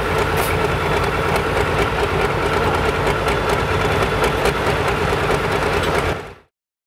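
John Deere 7930 super stock pulling tractor's engine idling loudly and steadily at rest after its pull; the sound drops away abruptly about six seconds in.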